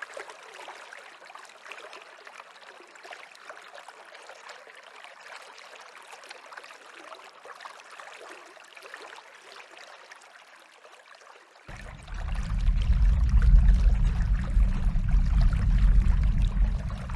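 Stream water trickling and gurgling steadily. About twelve seconds in, a loud low rumble of wind sets in suddenly and runs on under the water.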